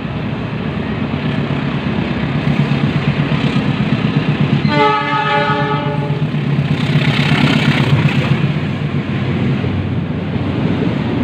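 CC206 (GE C20EMP) diesel-electric locomotive approaching at the head of a fuel tank train, its diesel engine running with a steady low throb. About five seconds in it sounds its horn once, for just over a second. The engine sound swells as the locomotive passes close, and the tank wagons then roll by.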